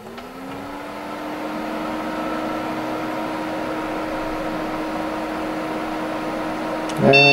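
Desktop PC powering on: its fans spin up with a rising whir over the first second, then run steadily. No spin-up of the corroded hard drive is heard: the drive stays dead.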